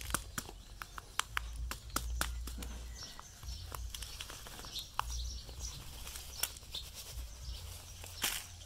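Plastic bottle and soil being handled as a guava cutting's root ball is worked out of it: scattered sharp clicks and crackles, with a louder crinkle near the end. Birds chirp faintly over a low rumble.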